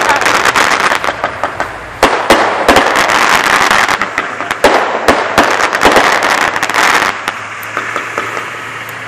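Consumer fireworks going off in dense clusters of rapid crackling pops and bangs, with a quieter spell near the end.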